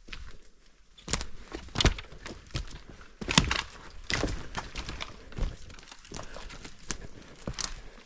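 Footsteps crunching through forest undergrowth, with twigs snapping underfoot in an irregular series of sharp cracks and thuds.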